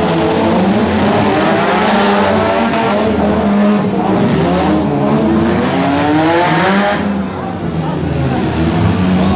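Several demolition-derby cars' engines revving up and down together as they race around a dirt figure-8 track, their pitches rising and falling and overlapping. The engines ease off briefly about seven seconds in, then pick up again.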